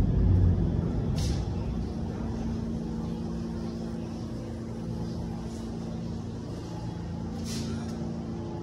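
Low rumble of a subway train dying away over the first two seconds, leaving a steady low hum with a few held tones. Two short hisses come about a second in and near the end.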